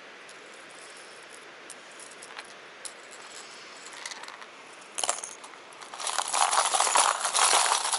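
Hard plastic minnow lures with treble hooks clicking against each other and a plastic tackle box as a hand rummages through them: a few scattered clicks, then a dense, loud rattling clatter from about six seconds in.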